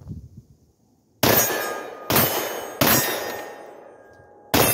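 Four 9mm pistol shots from a Glock-pattern handgun wearing a Kaw Valley linear compensator, fired one-handed at an uneven pace, starting about a second in. Each report is followed by a ringing decay. The gun cycles each round without jamming, and the comp does little to cut the loudness of the shots.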